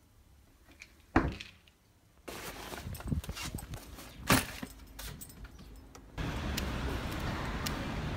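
A sharp knock, then a few seconds of rustling and clinking as a sports bag is handled on a car's back seat. About six seconds in, a steady street noise with a low hum sets in.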